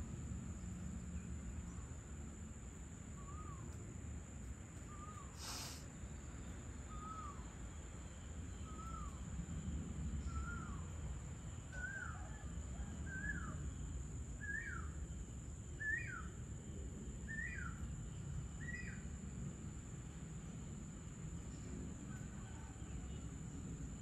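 A bird calling a series of about eleven short falling notes, roughly one every second and a half, each pitched a little higher than the last. A steady high insect drone runs underneath, and there is a single sharp click about five and a half seconds in.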